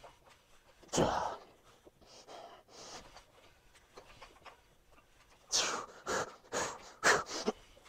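A man breathing hard under the strain of a barbell set taken to failure. There is a loud forceful exhale about a second in, softer breaths after it, then a quick run of about five sharp exhales and gasps near the end.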